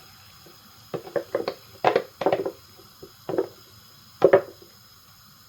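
Blender jar being handled: a series of short knocks and clunks, about seven in a few seconds, the loudest near the end. The blender motor is not running.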